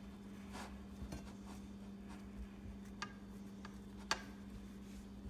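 Quiet kitchen handling: a few scattered clicks and taps, the sharpest about four seconds in, over a low steady hum.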